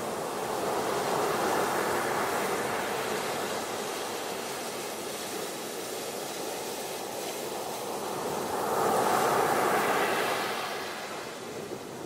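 Sea waves breaking and washing up a pebble beach, a steady rush of surf that swells twice, once about a second in and louder again near the end.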